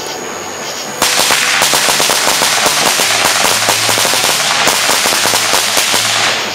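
A string of firecrackers going off on the ground: a sudden, dense run of rapid cracks starting about a second in and lasting about five seconds.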